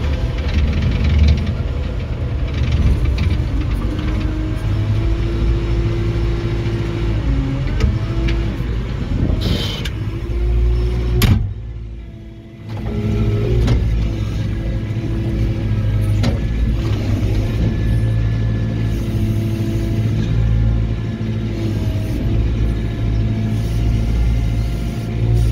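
Telehandler's diesel engine running under load, its note rising and falling as the machine is driven and worked. The sound drops away sharply for about a second near the middle, then returns.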